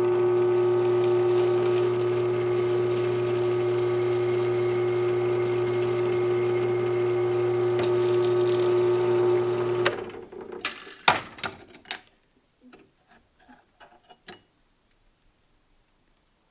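A machine's motor hums steadily at an even pitch, then stops about ten seconds in. A few sharp knocks follow.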